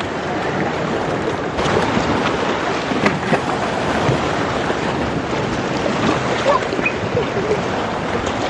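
Lake water washing against a rocky shore, with wind on the microphone.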